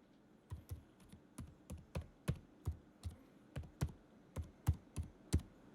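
A quick series of light clicks and taps, about three a second, each with a dull low knock under a sharp click, getting louder toward the end.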